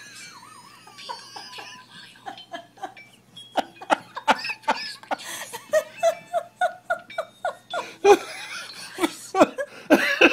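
A person laughing hard: a rapid run of short ha-ha bursts that starts about three and a half seconds in and grows louder near the end.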